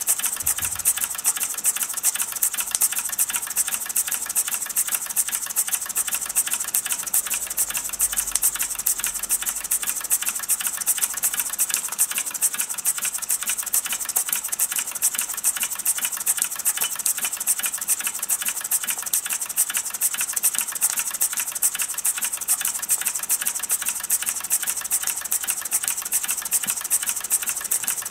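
Gas-fired Mamod SP7 twin-cylinder sleeve-valve model steam engine running fast: a rapid, even, hissy beat of its exhaust and moving parts.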